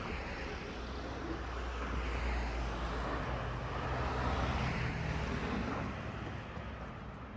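Cars driving past on a town street, engine hum and tyre noise. The noise builds over the first couple of seconds and fades away after about six seconds.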